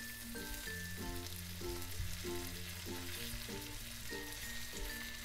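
Floured chicken breast fillets frying in melted butter, sizzling steadily while they are turned over with tongs. Light background music with a regular repeating note pattern plays underneath.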